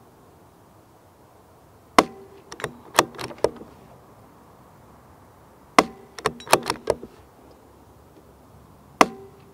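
CZ 457 LRP bolt-action rimfire rifle with a sound moderator fired three times, about three and a half seconds apart. After each of the first two shots the bolt is quickly worked, a run of four or five short metallic clicks.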